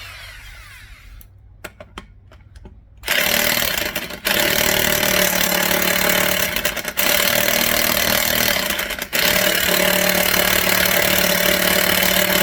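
A few light clicks, then from about three seconds in an impact wrench hammering on a wheel lug nut in four long bursts with brief breaks. The nut does not break loose, and a breaker bar is needed for it.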